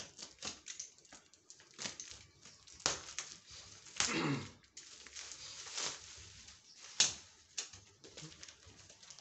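Box cutter slicing through the brown paper and packing tape of a long parcel, and the wrapping being torn and peeled back: irregular crackling and scraping with a few sharper rips, and a short squeal falling in pitch about four seconds in.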